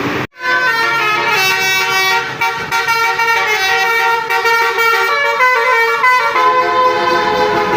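Basuri telolet bus horn, a multi-tone musical horn, playing a tune of stepped, chord-like notes. It cuts in abruptly after a brief dropout near the start.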